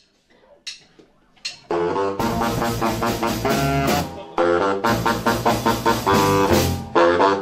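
A few faint taps, then just under two seconds in a small jump-blues combo kicks in: a saxophone leads over walking upright bass, drum kit and electric guitar.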